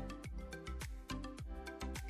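Background music with a quick steady beat, about four strokes a second, over deep falling bass notes.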